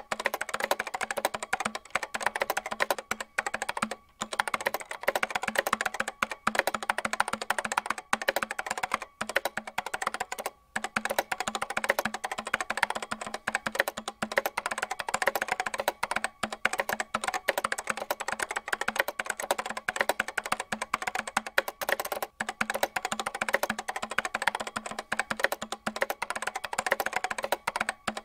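Rapid keyboard typing, clicking many times a second with a few short pauses, over a steady low hum.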